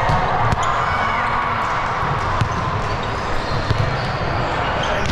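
Volleyball being played in a gym: a few sharp slaps and thuds of the ball being hit, over the steady echoing din of the hall.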